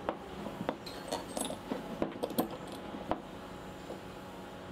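A string of light metallic clicks and clinks as a steel rod and nut are handled and fitted into a drilled wooden block on a wooden workbench, over a faint steady hum.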